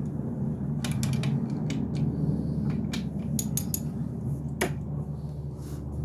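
Steel sockets clinking and clattering as they are handled and sorted through, a dozen or so sharp irregular clicks over a steady low hum.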